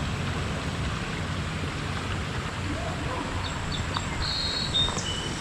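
Steady rushing of a flood-swollen creek, an even wash of water noise. A few short high chirps come in about three and a half seconds in.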